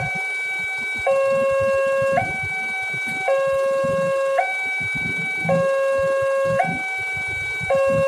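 Railway level-crossing warning alarm sounding as a train is due: an electronic two-tone signal switching between a lower and a higher tone about once a second. Under it is the low rumble of idling vehicle engines.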